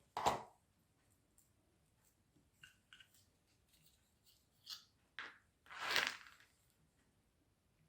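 Scissors snipping through faux fur: a snip just after the start, a few faint clicks, then a longer cut about six seconds in.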